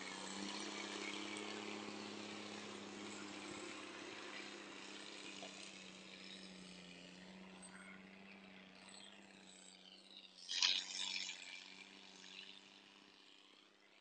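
Diesel engine of a log-laden semi-truck running steadily and slowly fading, with one brief loud burst of noise about ten and a half seconds in.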